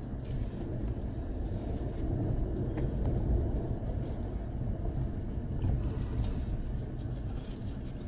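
Four-wheel-drive truck driving on a dirt track: a steady low engine and tyre rumble that grows a little louder in the middle, with a few light rattles near the end.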